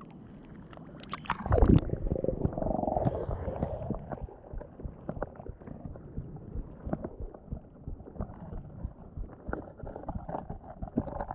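A splash and thud about a second and a half in as the action camera plunges into the river, then the muffled sound of underwater water movement heard from inside the water: a low gurgling rumble with many small scattered clicks and ticks.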